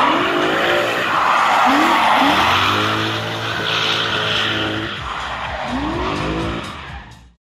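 Drift car's engine revving up and down repeatedly while its tyres squeal in a slide. The sound cuts off abruptly near the end.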